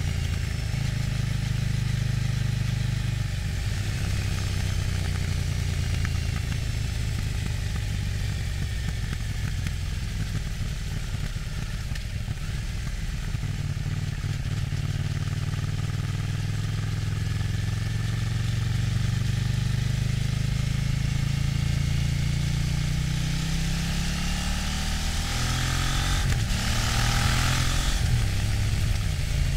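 KTM 790 Duke's LC8c parallel-twin engine running through its stock exhaust, heard onboard while riding: a steady engine note that drifts up and down with the throttle. Near the end the revs dip and climb again, with a brief burst of hiss.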